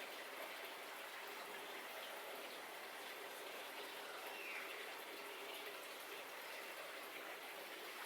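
Faint steady hiss of background room noise, with no distinct events.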